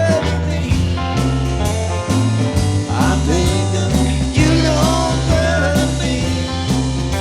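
Live band playing a country-rock tune: a lead guitar with bent notes over a stepping bass line and drums.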